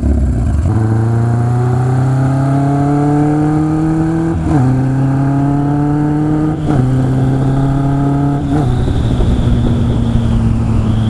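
Kawasaki KZ1000 inline-four motorcycle engine pulling away from a stop about a second in, rising in pitch through the gears with three upshifts about two seconds apart, then holding a steady cruise.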